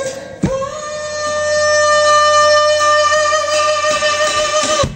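Live band holding one long sustained note for about four seconds, cut off sharply just before the end.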